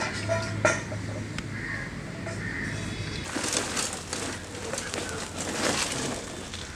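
Birds calling, with two sharp clicks in the first second and a steady low hum that stops about three seconds in; from then on a wood fire under the wok crackles and hisses.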